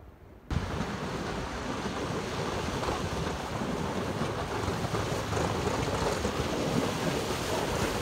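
Pickup truck pushing snow across asphalt with a front-mounted plow blade: a steady, loud, rushing scrape that starts suddenly about half a second in.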